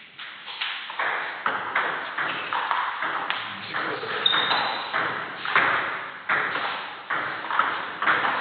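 Table tennis ball being hit back and forth in rallies, clicking off the bats and the table about twice a second.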